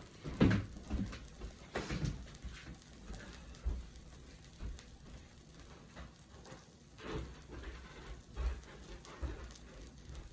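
Footsteps walking away: several heavy thuds in the first two seconds, then fainter, sparser ones, over a faint patter of food cooking on the hot surface.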